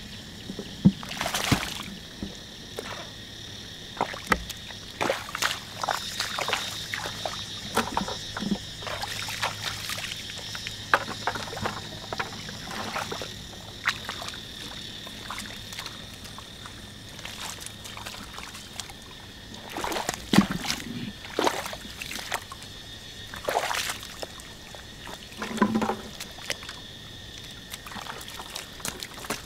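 Irregular splashing and squelching of hands and feet working through shallow water and soft mud in a flooded rice paddy, over a steady high-pitched drone.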